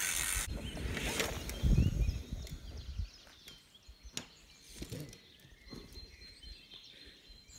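Pivot Firebird 29 mountain bike rolling past close by, with a low rumble just before two seconds in, then a quieter outdoor background with birds chirping and a few sharp clicks.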